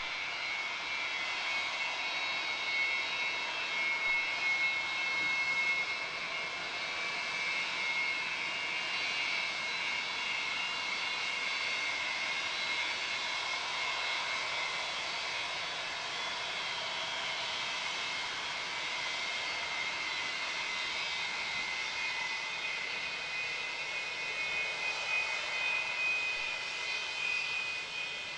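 Antonov An-225's six Progress D-18T turbofan engines running at low taxi power: a steady high whine over jet noise, swelling a little early on and again near the end.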